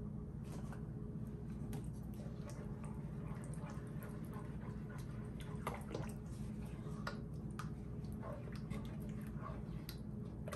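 Wooden spoon stirring a thick tomato and ground-beef sauce in an enamelled cast-iron pot: wet squelching with scattered light scrapes and clicks, over a steady low hum.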